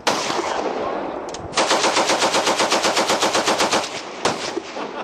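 Automatic gunfire: a single shot, then a fully automatic burst of about two seconds at roughly eleven rounds a second, then another single shot near the end.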